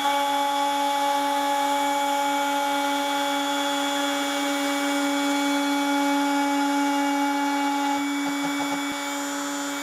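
Compact trim router on a Longmill CNC running with a steady whine as its 1/4-inch upcut end mill trims the edge of an MDF fence. The tone changes slightly about eight seconds in.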